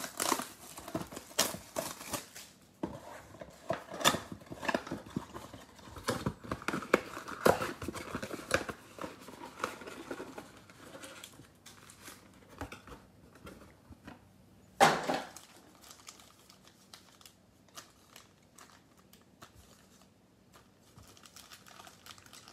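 Shrink-wrapped cardboard trading-card mega box being torn open and its foil packs handled: irregular crinkling, tearing and rustling for about the first ten seconds, one louder sudden noise about fifteen seconds in, then faint handling.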